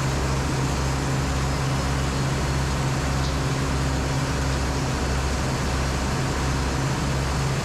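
Sawmill machinery running steadily: a loud, continuous low drone with a regular pulse in it.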